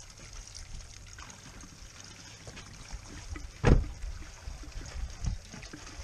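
Gasoline trickling from a plastic gas can's spout into a shallow pan of styrofoam, a thin steady pour. A single dull thump about three and a half seconds in.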